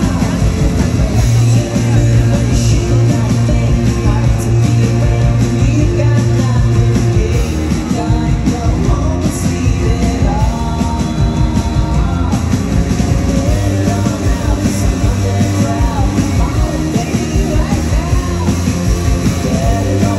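Live rock band playing: electric guitars, bass guitar and drums, with a man singing the lead vocal.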